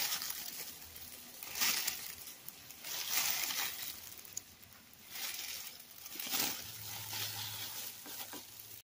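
Disposable plastic gloves crinkling in about five separate bursts of rustling as gloved hands pull apart a grilled hamburger patty. The sound cuts off abruptly just before the end.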